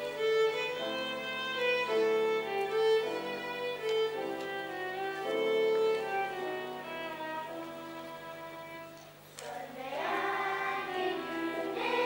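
Violin playing a melody of held, bowed notes. The music grows quieter about nine seconds in, then a fuller sound picks up.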